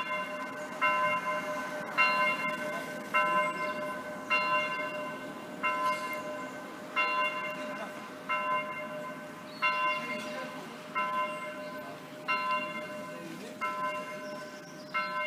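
Electronically simulated church bell played through loudspeakers: one bell sounding the same note about once every 1.3 s, as a swinging bell does. The strokes slow slightly and grow quieter.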